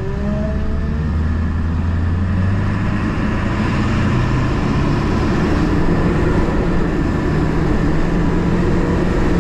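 Ford 7.3 Powerstroke V8 turbo-diesel in an F-250 Super Duty running steadily while the truck is driven, mixed with road noise that grows a little louder a few seconds in. The engine is running and shifting well.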